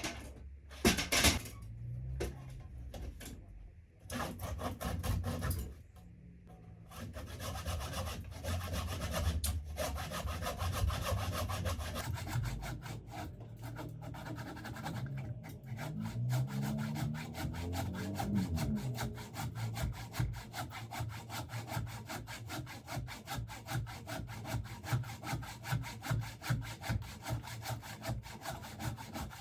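Handsaw cutting through a wooden log in steady back-and-forth strokes, with a couple of sharp knocks near the start.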